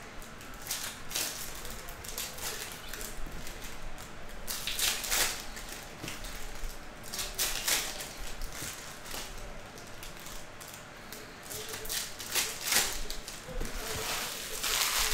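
Foil trading card pack wrappers crinkling and tearing as packs are opened and handled, in a series of short rustling bursts.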